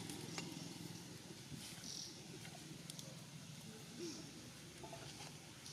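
Faint outdoor ambience with a few soft scattered clicks and one brief faint call about four seconds in.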